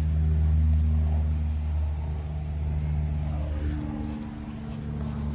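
A vehicle engine running with a steady low hum, shifting slightly in pitch about three and a half seconds in.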